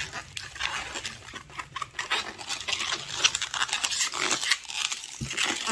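Inflated latex modelling balloon rubbing and creaking under the hands as it is twisted into small pinch-twisted bubbles, in a run of irregular scratchy strokes.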